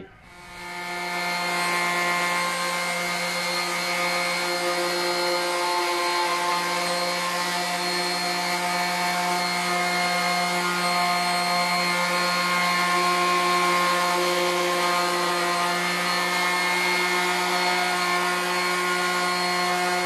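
Electric random orbital sander spinning up, then running at a steady hum as it sands a wooden bench top with 240-grit paper, smoothing the dried coat of sanding sealer.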